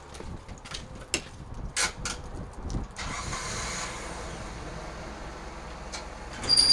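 A semi truck's diesel engine starting up about three seconds in and then running steadily, after a few scattered clicks and knocks.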